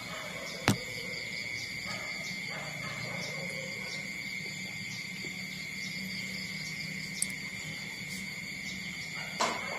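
Insects chirring steadily in a high even drone, with a sharp click about a second in and another near the end.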